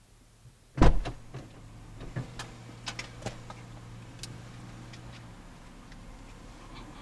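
A car door shutting with a heavy thump about a second in, heard from inside the car's cabin, followed by a string of light clicks and knocks.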